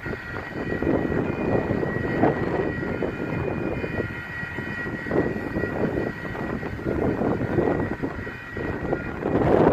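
Railroad grade-crossing warning bell ringing steadily as the flashing signals activate and the gate arm lowers, stopping near the end. Wind buffets the microphone underneath.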